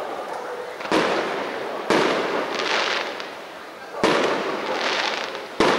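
Aerial firework shells bursting: four sharp bangs, the first two a second apart and the others about two and a second and a half later, each echoing on for a second or so. A higher hiss follows the second and third bangs.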